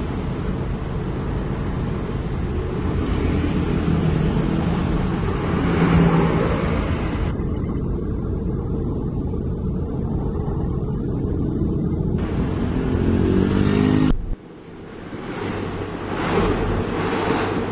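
A truck engine running steadily under way, with road and wind noise. About 14 seconds in the sound cuts off abruptly to a quieter stretch of wind and road noise that grows louder again.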